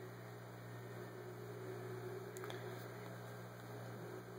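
Steady low electrical hum with a faint click about halfway through.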